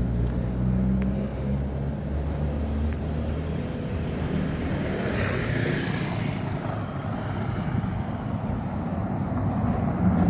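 A motor vehicle's engine running with a steady low hum, then a broader noisy swell of passing traffic about five seconds in.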